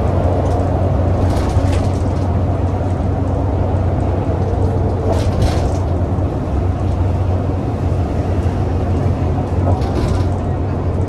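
Bus's Cummins ISBe diesel engine running steadily, with three short bursts of clattering rattles spread through.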